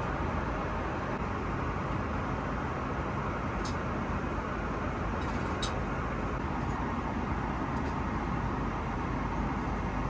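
Steady cabin noise of an Airbus A330 in flight, the even rush of engines and airflow, with two light clicks about four and six seconds in.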